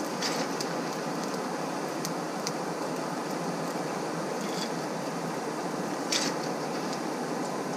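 Coal forge fire with air blown into it: a hair dryer serving as the forge blower gives a steady rush of air, and the burning coal gives a few sharp crackles and pops, the loudest about six seconds in.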